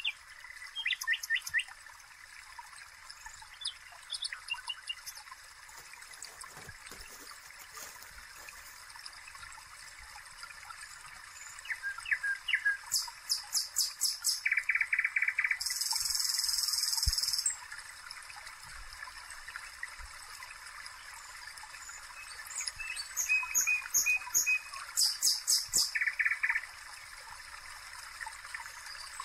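Birds chirping over a steady hiss: several quick runs of high chirps, with a buzzy trill about halfway through.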